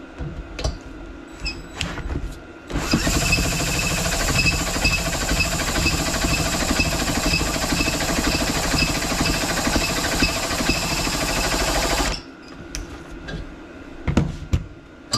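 Cordless drill spinning the self-cleaning diesel heater's cup shaft, turning the rotating cup inside the burn chamber to knock loose built-up ash from burning waste engine oil. It runs steadily for about nine seconds with a faint tick about twice a second, then stops. A couple of knocks follow near the end.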